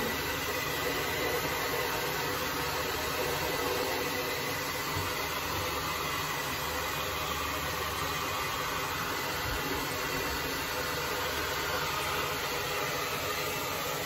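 Handheld hair dryer running steadily, blowing hot air onto the iced-up evaporator coil of a split-type air conditioner's indoor unit to melt the ice: a continuous even whoosh.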